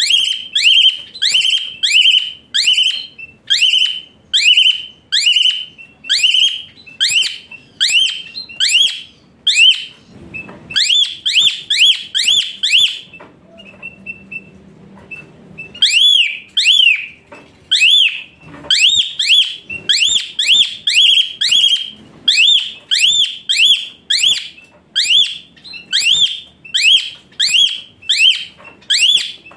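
Black-collared starling (jalak suren) calling a long series of loud, ringing whistled notes, about two a second, each rising then falling in pitch, with a short pause near the middle.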